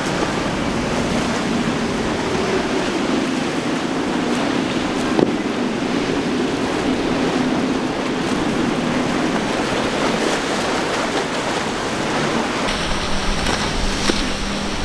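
Surf and breaking waves mixed with the drone of an outboard-powered boat running fast through choppy water, with wind on the microphone. About 13 s in the sound changes, with a deeper wind rumble.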